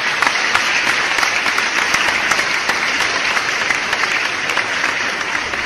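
A strong jet of water sprayed onto plastic toys on wet grass: a loud, steady hiss of spray with many small spattering ticks as the water strikes the toys.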